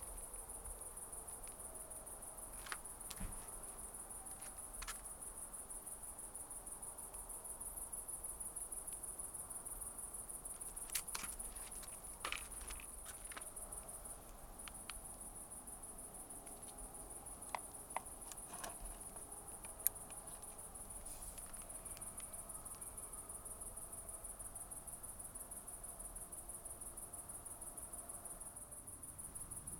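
Crickets chirping in a steady, fast, high-pitched trill, with a few small clicks and taps now and then.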